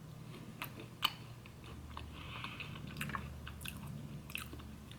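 A person chewing French fries close to the microphone: scattered soft mouth clicks and smacks.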